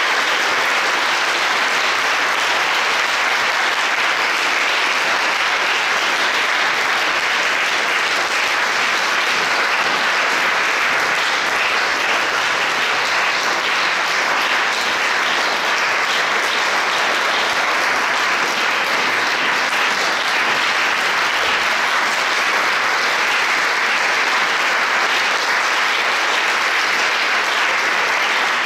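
Audience applause, steady and sustained without a break.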